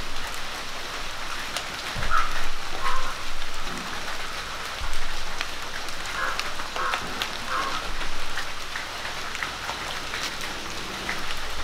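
Hands rubbing chilli and spice paste into raw sardines in a stone bowl: wet squishing that comes in a few louder bouts, over a steady hiss with scattered ticks.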